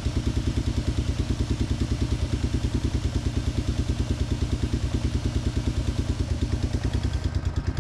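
Yamaha Big Bear 350 ATV's single-cylinder four-stroke engine idling steadily, a rapid, even putter.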